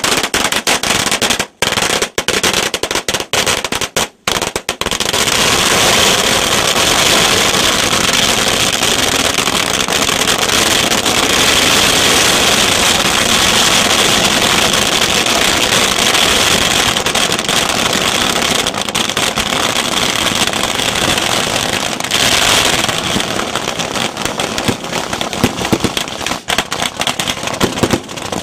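Strings of firecrackers going off: separate sharp bangs for the first few seconds, then a dense, unbroken crackle of rapid bangs, thinning out to scattered bangs over the last few seconds.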